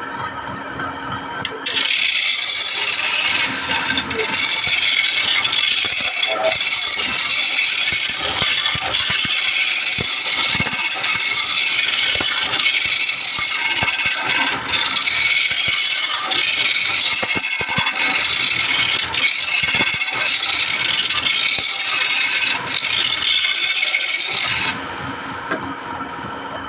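Steady, loud scraping of wood being rubbed by an abrasive or cutting tool. It starts abruptly about two seconds in and cuts off suddenly near the end.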